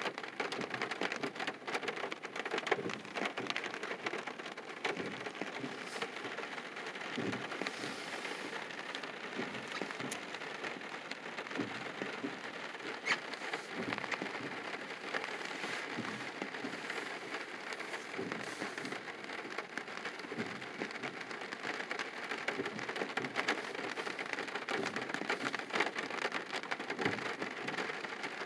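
Steady rain falling on a car, heard from inside it: an even hiss dotted with many small drop ticks.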